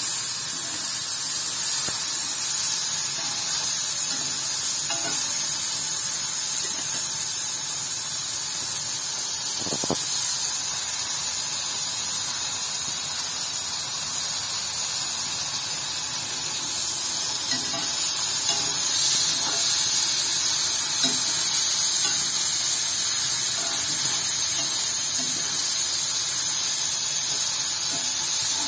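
Athalakkai (small wild bitter gourds) sizzling steadily as they dry-fry in oil in a kadai, with no water added, being sautéed until brown. A single sharp knock, likely the stirring spoon against the pan, comes about ten seconds in.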